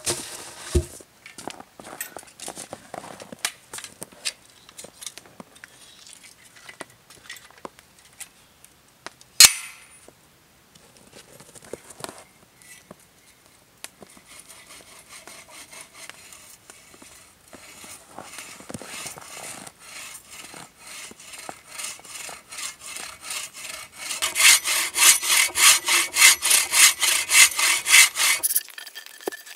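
Scattered light knocks and rustles, with one sharp loud knock about a third of the way in. Near the end, a folding bow saw cuts across a fallen conifer trunk in quick, even, loud push-pull strokes.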